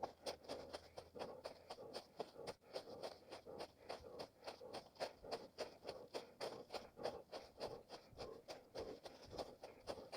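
A runner's footsteps on forest ground, in a steady rhythm of about three steps a second.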